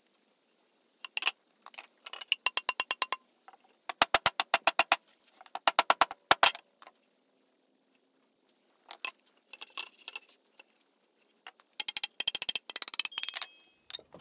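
Several short runs of rapid, evenly spaced light taps, about eight to ten a second, with pauses between the runs.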